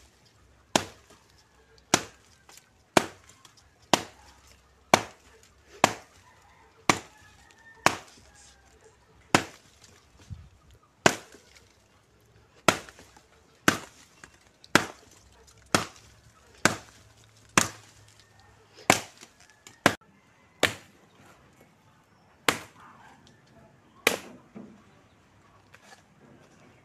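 Dry branches being chopped for firewood: sharp, evenly paced strokes about one a second that stop about two seconds before the end.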